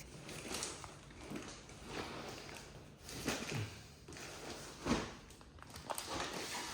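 Handling noises from a package being moved and opened: irregular rustling with a couple of sharper knocks, about three and five seconds in.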